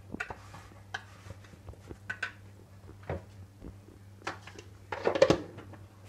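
Scattered light knocks and clinks of kitchen utensils against a glass mixing bowl, the loudest cluster about five seconds in, over a steady low hum.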